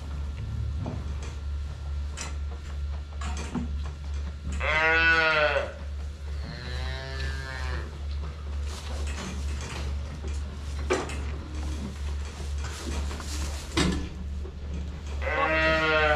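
Young calves bawling: a loud call about five seconds in, followed by a fainter, longer one, and another loud call near the end. A steady low pulsing hum runs underneath, with scattered light clicks.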